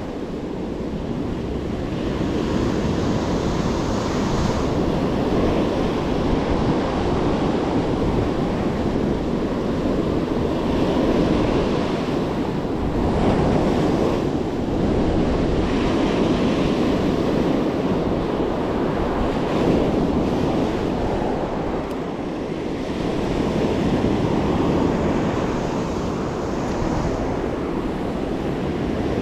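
Ocean surf breaking and washing up a sandy beach, a continuous rushing wash that swells and eases as waves come in, with wind buffeting the microphone.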